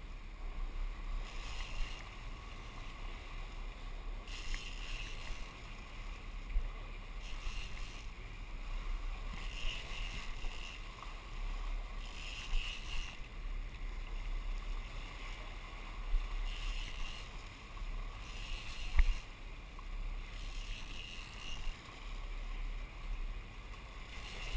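Sportfishing boat's engine running slowly in forward gear, a steady low rumble, with water washing along the hull.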